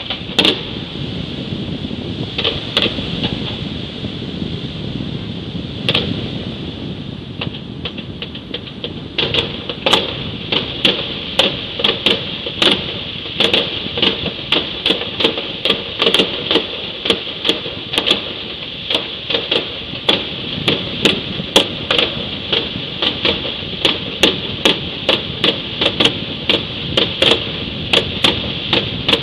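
Fireworks going off: a few scattered sharp bangs, then from about nine seconds in a steady run of sharp pops, about two a second, over a constant high hiss.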